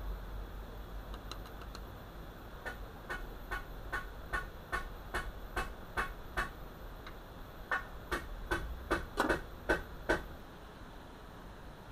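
A run of light, sharp taps, about two to three a second, starting a few seconds in and stopping about ten seconds in, over a low steady hum.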